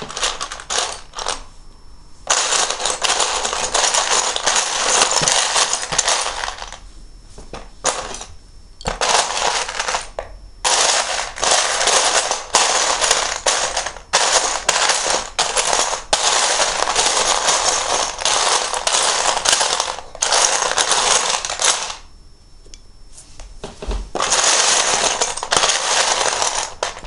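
Loose plastic Lego bricks rattling and clattering as a hand sifts through a pile of pieces: long spells of dense clicking broken by a few short pauses.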